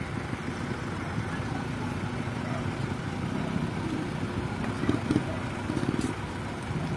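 Motorcycle engines idling together in stopped traffic, a steady low rumble, with voices nearby.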